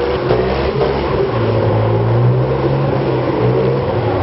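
Off-road buggy's engine running hard at high revs as the buggy spins donuts on pavement, its pitch wavering up and down with the throttle.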